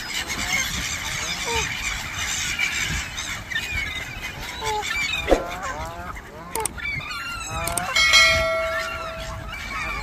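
A flock of Canada geese honking and gulls calling over a pond while being fed, many short calls overlapping. About six and a half seconds in there is a click, and about eight seconds in a bell-like chime rings for over a second.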